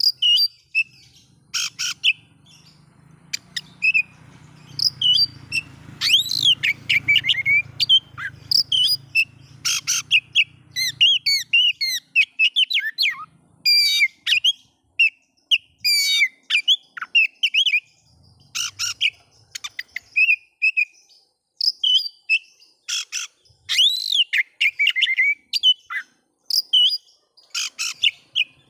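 Oriental magpie-robin (kacer) singing: a fast, varied run of whistles, chirps and sweeping notes in phrases broken by short pauses.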